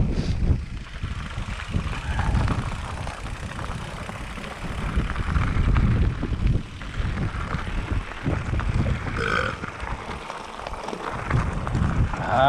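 Wind buffeting the microphone and the low rumble and rattle of a mountain bike riding fast down a rough dirt trail, with a brief higher-pitched sound about nine seconds in.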